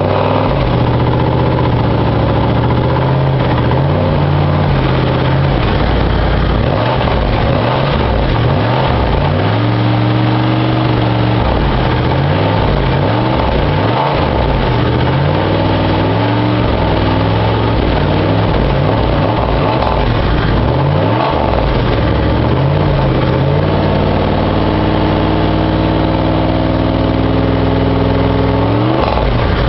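Cadillac STS V8 engine and exhaust, loud, revved up and down repeatedly. It then holds a steady raised rev for several seconds and drops back near the end.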